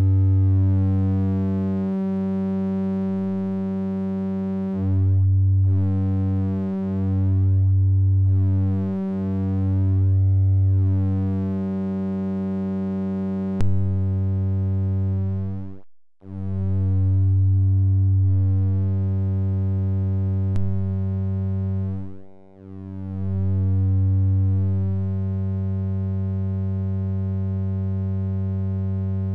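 Steady low synthesizer tone from a modular patch run through the Earwig rectifying mixer. Its timbre shifts in steps as the bias controls reshape and rectify the waveform. The tone dips almost to nothing twice in the second half, and there are two short clicks.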